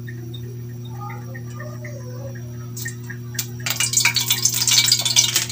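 Cooking oil poured from a bottle into a large aluminium wok, crackling as it meets the hot metal. The dense crackle starts about two-thirds of the way in and grows louder, over a steady low hum.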